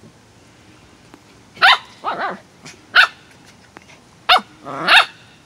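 Corgis barking in play: a run of about five sharp, high barks starting about a second and a half in, a couple of them sliding down in pitch.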